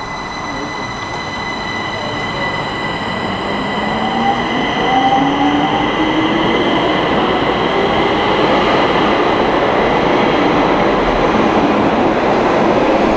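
Electric train accelerating: its motor whine rises slowly in pitch and the sound grows louder, over a steady rumble with a few constant high tones.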